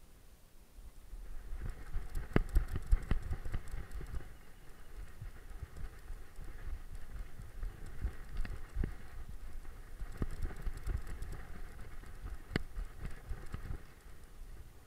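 Handling noise from a camera worn by a moving dog: irregular low thumps of footfalls and knocks of the camera jolting in its mount, with grass rustling against it, starting about a second and a half in. The sharpest knocks come two to three seconds in and again near the end.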